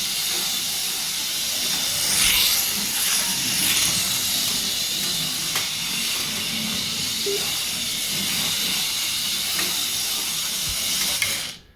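HO-scale 1966 Batmobile slot car running laps: a steady high whirring hiss from its small electric motor and pickups on the rails, with a few light ticks. It cuts off suddenly near the end.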